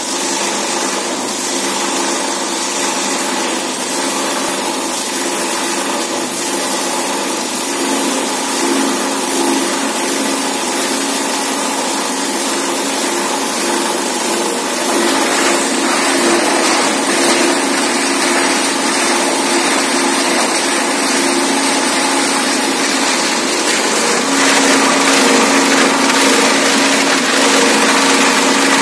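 PET bottle grinder (plastic granulator) running, a steady machine hum under a dense chopping rattle as plastic bottles are fed into its cutting chamber; it grows louder about halfway through and again near the end as more bottles go in.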